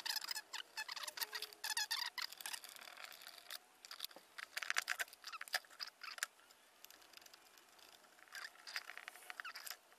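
Hands handling wiring and a circuit board inside a plastic electrical enclosure: irregular clicks, scrapes and rustling, with a few short plastic squeaks in the first couple of seconds and a quieter stretch about two thirds of the way through.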